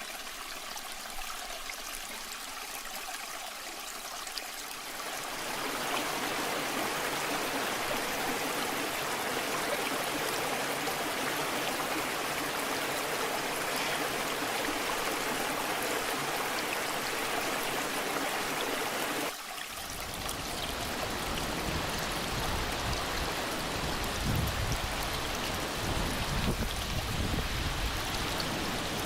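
Waterfall water rushing and splashing in a steady wash of noise. About five seconds in it grows louder and fuller. A sudden change about nineteen seconds in brings a deeper rumble underneath.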